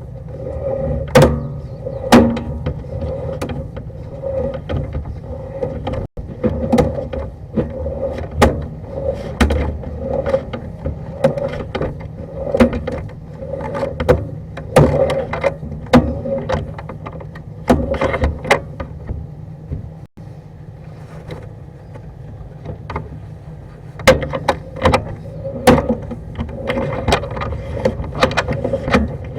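Sewer inspection camera's push cable being pulled back out of the drain line and fed into its reel, with a steady hum that swells in a regular pulse and sharp rattling clicks throughout.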